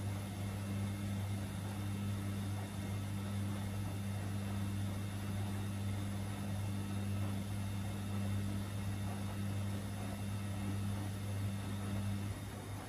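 Samsung and Gorenje front-loading washing machines running side by side on bulky loads: drums tumbling the wet laundry and suds over a steady low hum. Near the end part of the hum drops away and the sound gets a little quieter.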